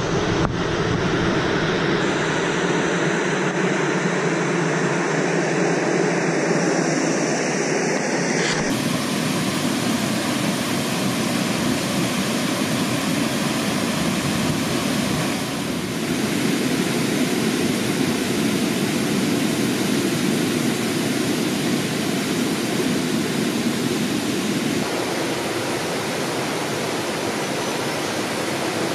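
Rushing water running steadily, its tone shifting abruptly about nine seconds in and again near the end.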